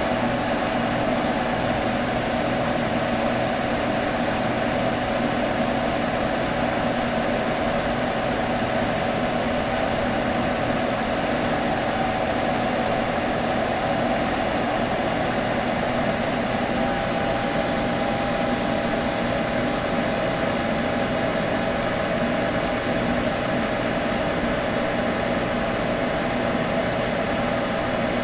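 Computer humming steadily: a fan's even whoosh with a constant low drone and a higher hum.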